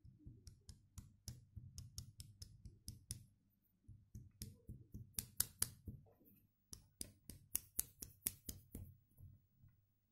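Rapid light clicks and taps from handling a small glass vial of magnetic powder, about four or five a second, in three runs with short pauses about four and six and a half seconds in.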